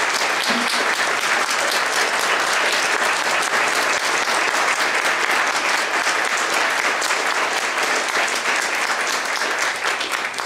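Audience applauding: many people clapping steadily in a large hall.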